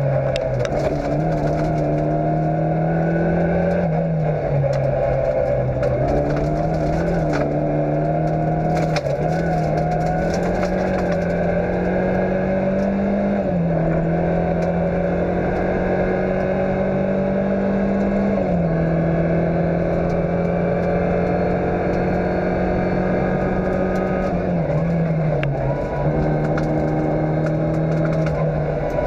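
Fiat Cinquecento rally car's engine running at steady revs, heard from inside the cabin, its pitch stepping up and down several times. Stones clicking and scraping against the car now and then.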